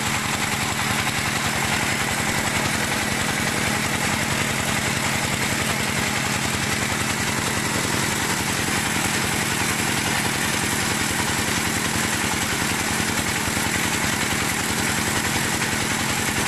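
Single-cylinder diesel engine running loud and steady at constant speed, driving a belt-driven rice-puffing extruder that makes puffed rice tubes (bánh ống) as rice is fed into it.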